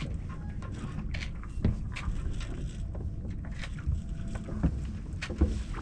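Low rumble of wind and water around a J105 sailboat drifting in light air, with scattered small clicks and knocks from the boat's gear.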